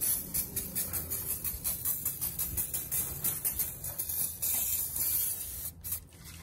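Protectant or tire shine spray hissing in quick, uneven spurts over an engine bay, with a low steady hum underneath.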